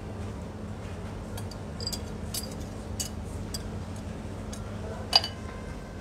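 Light clinks and taps of a utensil against a glass bowl and plate while sauce is spooned over salmon, with one sharper clink about five seconds in, over a steady low hum.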